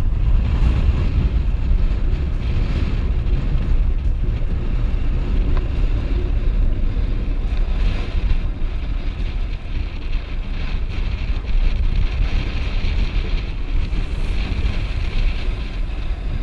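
Strong wind buffeting the microphone in a loud, continuous rumble, over the wash of choppy open water around a kayak.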